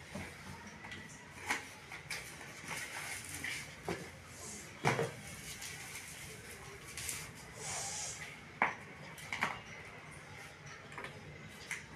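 Unboxing handling sounds: a cardboard box and hard plastic tripod parts being picked up and set down, giving scattered clicks and knocks, the sharpest about five seconds in and again near nine seconds. Plastic wrapping crinkles for a moment around eight seconds in.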